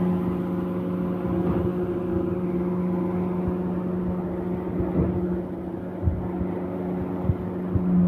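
Construction machinery at a concrete pour running steadily with an even engine hum, with a few short knocks in the second half.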